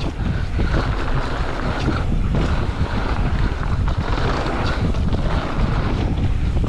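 Wind buffeting an action-camera microphone at downhill riding speed, over the steady rumble of mountain bike tyres on a rough trail, with a few knocks from bumps.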